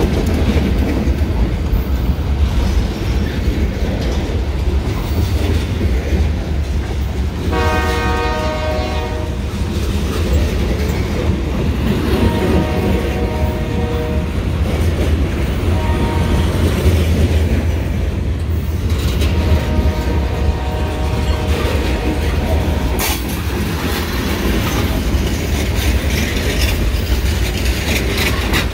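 Freight train rolling past close by: a steady low rumble of freight cars on the rails. Over it the locomotive's air horn sounds four blasts, long, long, short, long, starting about eight seconds in: the grade-crossing signal.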